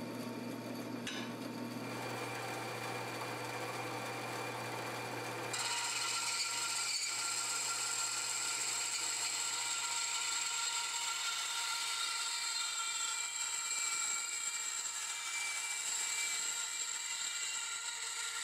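Bandsaw converted from wood to metal cutting, running and sawing through steel. For the first five seconds there is a low motor hum under a rasping cut. Then the sound changes abruptly as the blade cuts a 2-inch steel exhaust pipe, giving a louder, steady high whine with several tones over the rasp.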